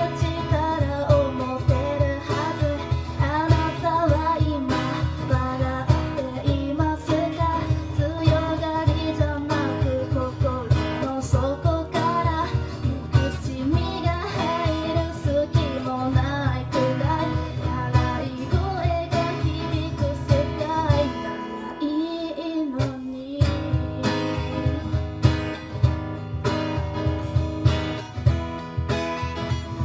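A live song with a strummed acoustic guitar and a singing voice. The strumming stops for about two seconds a little past two-thirds of the way through, then comes back in.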